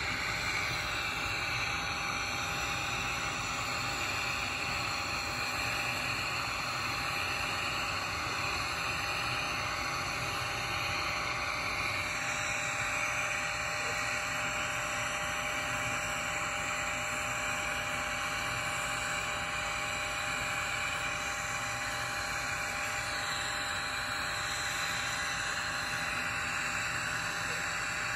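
TIG welding arc running steadily while laying the cap on a 2-inch steel pipe coupon in the 2G position: an even hiss with a faint steady hum.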